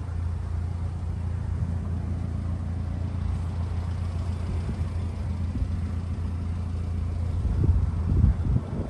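1995 Subaru Sambar mini truck's small four-cylinder EN07 engine running with a steady low hum, with a few louder irregular bumps near the end.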